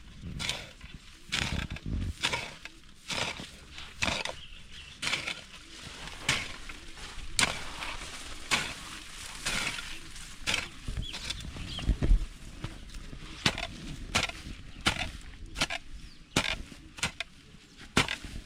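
Repeated chopping strokes of a hand tool, a hoe or machete clearing grass and digging soil: a sharp hit with a short swish, about one or two a second, coming faster near the end.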